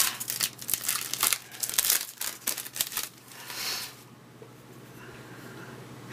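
Crinkling and tearing of a baseball card pack wrapper being opened, mixed with cards rustling as they are handled, for about the first three seconds. A short rustle follows, and after that only a faint low hum.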